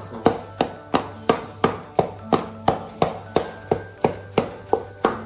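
Wooden pestle pounding soft boiled cocoyam (taro) paste for achu in a metal pot, striking in a steady rhythm of about three strokes a second.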